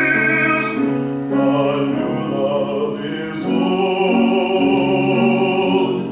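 A classically trained tenor sings a sustained lyrical phrase with vibrato, over instrumental accompaniment.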